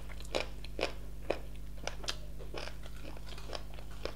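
Crunching and chewing of KFC fried chicken wings close to the microphone: irregular crisp crunches and mouth sounds, over a steady low hum.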